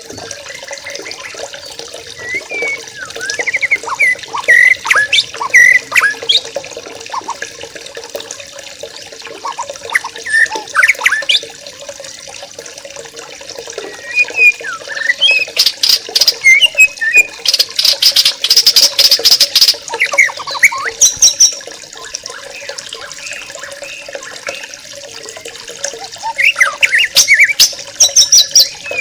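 A flock of young yellow-vented bulbuls (trucukan) chirping and chattering in irregular bursts of short calls, with a busier stretch of rapid chatter around the middle, over a steady background hiss.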